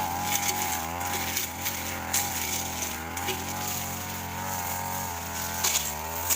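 Stihl two-stroke brush cutter running at high revs, its engine pitch wavering under load as the metal blade cuts through grass and woody scrub. There are a few sharp cracks as the blade strikes sticks.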